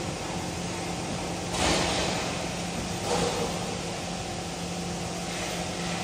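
Cable tray roll forming machine running, feeding a perforated steel tray through its forming rolls with a steady mechanical hum. Two brief louder rushes come about one and a half and three seconds in.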